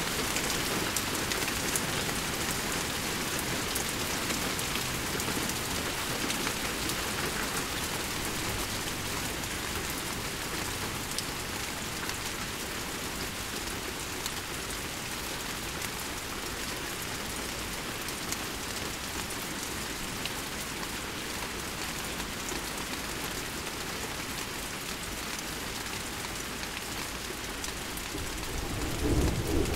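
Steady rain falling, an even hiss with fine drop ticks, from a passing rain storm. Near the end a low rumble of thunder swells up.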